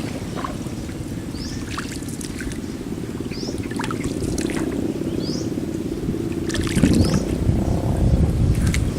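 Steady low rumble of a small boat moving along the river, with water noise that grows louder about seven seconds in. A bird gives short rising chirps every second or two.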